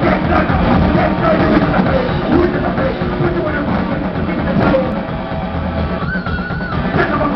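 Live rock band playing: drum kit and distorted electric guitars over bass. Near the end the music thins briefly under one held high guitar note.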